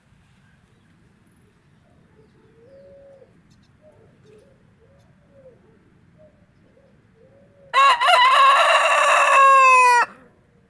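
Rooster crowing once, loud and about two seconds long, its pitch falling away at the end; before it, soft low clucks.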